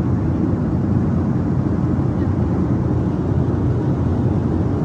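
Steady low rumble of cabin noise inside a Boeing 737-800 airliner, even throughout with no distinct events.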